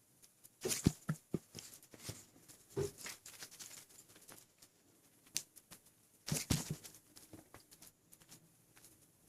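Gurgling and sloshing of an overfull stomach, heavy with water: scattered crackles and pops, with a louder cluster with low thumps about a second in and another about six and a half seconds in.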